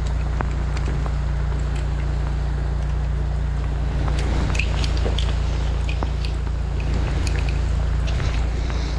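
Steady low drone of a drain jetter's engine running. Over it come light metallic clicks and scrapes, mostly in the second half, as an adjustable wrench works on a steel jetting nozzle's threaded fitting.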